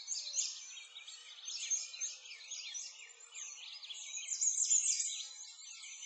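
A dense chorus of small birds chirping and twittering, many quick high chirps overlapping without a break.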